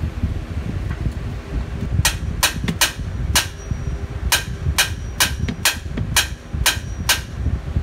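Claw hammer striking the end of a screwdriver held against a stuck spin-on oil filter on a Ram 1500's 5.7 Hemi, about a dozen sharp metallic blows in quick succession starting about two seconds in, with a steady low hum underneath.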